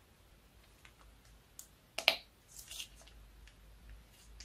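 Slime being squeezed out of a plastic piping bag into a bowl: scattered soft clicks and small crackles, the sharpest about two seconds in and a short run of them just before three seconds.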